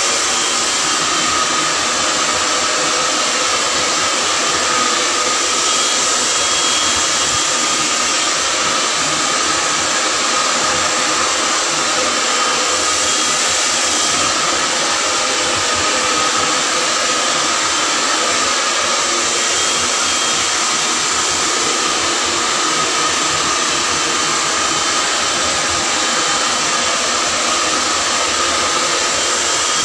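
Handheld hair dryer blowing steadily, a continuous rush of air with a faint steady whine in it.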